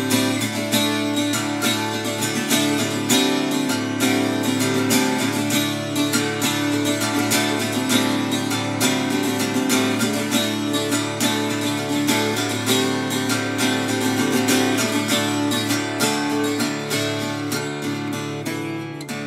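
Acoustic guitar strummed in a steady rhythm, playing a song's instrumental passage without singing.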